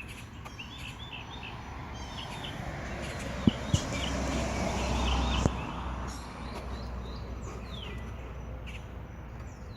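Songbirds singing: quick repeated chirped phrases through the first half and falling slurred notes near the end. Around the middle a rush of noise swells and fades, with three sharp clicks in it.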